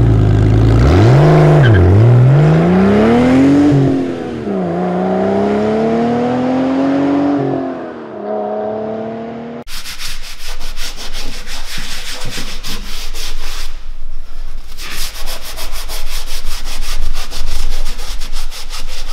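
An engine revs up and down in several swoops, then cuts off suddenly. After that a cloth rubs back and forth in quick strokes over a plastic engine cover, in two runs.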